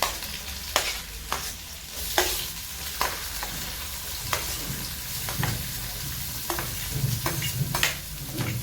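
Garlic and chillies sizzling in hot oil in a pan while they are stirred, the spatula knocking and scraping against the pan at irregular intervals about once a second.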